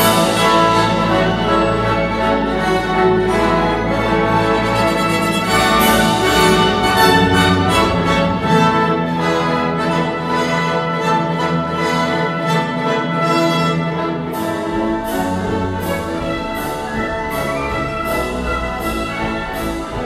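Orchestral classical music played from CD through Dali Helicon 400 MK2 stereo speakers and picked up in the room. It is loud and sustained, with strong accents at the start and about six seconds in. Short, evenly spaced accented notes, about two a second, come in the last few seconds.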